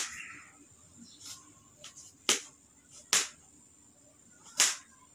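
Kitchen knife chopping apple into cubes on a cutting board: a handful of sharp, irregularly spaced knocks of the blade hitting the board, the loudest about two and a quarter and four and a half seconds in.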